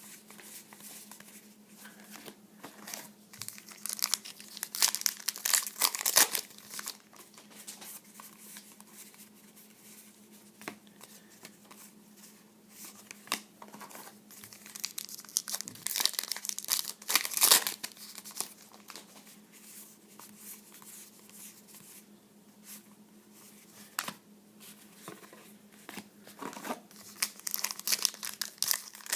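Trading card pack wrappers being torn open and crinkled in three bouts, with cards handled in between. A faint steady hum runs underneath.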